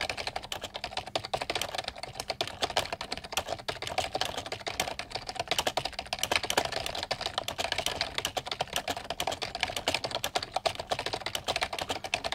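Computer keyboard typed on by hand at speed, a rapid, steady stream of keystrokes with no real pauses.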